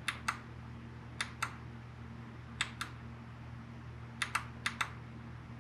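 Push buttons on a V3MS Dash7 digital dash clicking as its setup menus are stepped through: five quick double clicks, spaced about a second apart, over a steady low electrical hum.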